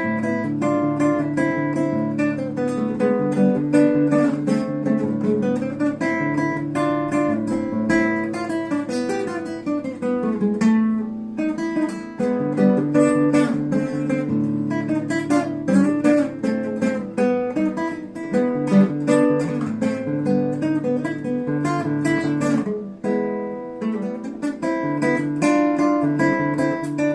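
Acoustic guitar played as a finger-movement exercise: a continuous run of plucked notes over ringing bass notes.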